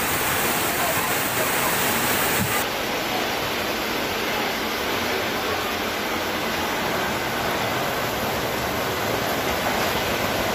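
Steady, loud rushing of heavy rain and running floodwater, a continuous hiss-like roar with no single events; its highest hiss drops away about two and a half seconds in.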